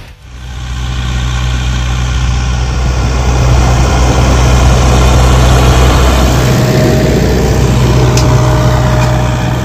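Ursus 912 tractor's diesel engine running steadily while it pulls a seed drill, growing a little louder about three seconds in.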